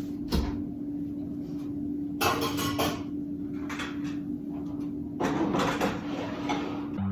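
Dishes and dishwasher racks being handled while a dishwasher is loaded: scattered clicks and clatter, with two longer sliding, scraping stretches about two and five seconds in, over a steady low hum.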